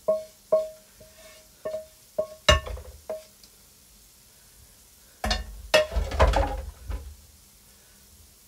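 A metal spatula knocking against a frying pan as greens are scraped out into bowls: a run of short ringing clinks about twice a second, then a louder clatter of pan and utensils about five seconds in.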